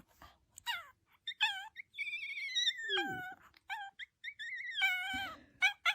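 A dog doing a "say ow" talking trick on cue: a series of high-pitched, wavering whining howls. There are several short yelps and two longer drawn-out calls, around three and five seconds in.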